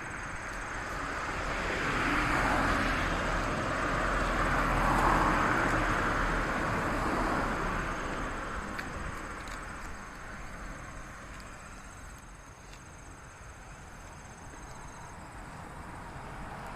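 A vehicle passing by: a rushing noise that builds over the first few seconds, peaks around five seconds in, then fades away.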